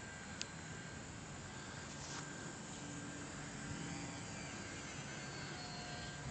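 Faint buzz of a Parkzone T-28 Ultra Micro model plane's small electric motor flying overhead, heard through a steady outdoor hiss. A short click comes about half a second in.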